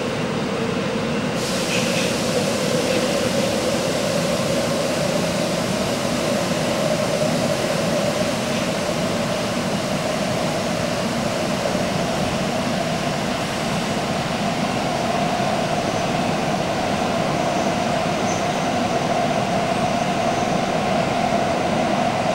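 Running noise inside a Tokyo Metro 1000 series subway car, a Toshiba IGBT-VVVF train with permanent-magnet motors, in the tunnel: a steady rumble of wheels on rail, with a faint tone that slowly rises in pitch.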